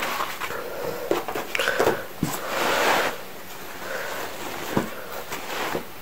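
Woven fabric of a garment rustling and brushing as it is handled and spread on a wooden table, with a few light clicks and knocks.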